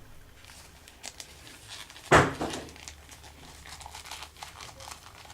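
Plastic packaging crinkling and rustling as a toy action figure is handled, with scattered small crackles and one loud burst of crinkling about two seconds in.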